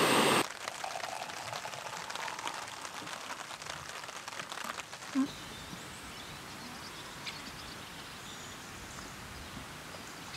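A loud steady sound cuts off suddenly about half a second in. What follows is faint outdoor ambience, with scattered light ticks in the first few seconds, a short low blip about five seconds in and a few faint high bird calls.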